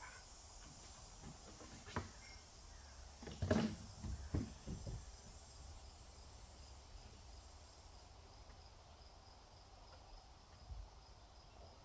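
Insects chirping steadily in the background, a faint even pulsing. A few short knocks and clatters cut in, the loudest cluster about three and a half to five seconds in.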